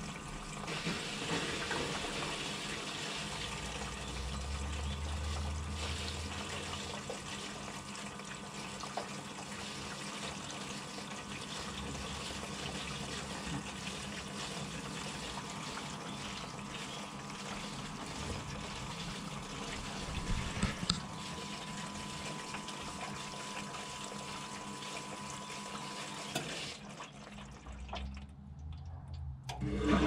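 Front-loading washing machine filling with water: a steady rush of water into the drum with a faint steady hum beneath it. The rush drops away near the end.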